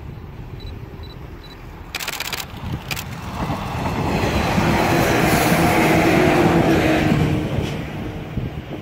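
A Shinano Railway 115-series electric train passing close by: its running noise swells to loudest in the middle and fades as it moves away. Just before it arrives there is a short burst of rapid clicks, then another about a second later.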